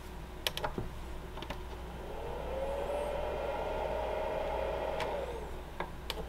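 Light metallic clicks of charger-lead ring terminals being handled and fitted onto the battery's terminals, then a steady motor-like whine that rises in pitch over about a second, holds for a couple of seconds and falls away about five seconds in.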